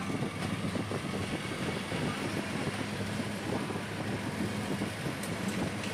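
KSRTC Sarige bus running at speed, heard from inside the cabin: a steady low engine hum under an even wash of road noise.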